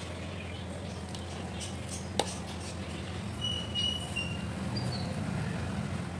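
Kitchen scissors snipping green chillies into a bowl of gram-flour batter mix, with one sharp snip about two seconds in and fainter snips around it, over a steady low hum. A few brief high-pitched tones come a little after the sharp snip.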